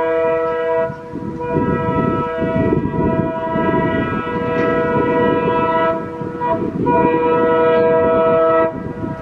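WDM3A diesel locomotive's multi-tone air horn sounding in long blasts: one cuts off about a second in, then a blast of about four seconds, a short toot, and another of about two seconds near the end. Under it runs the low rumble of the approaching train's engine and wheels.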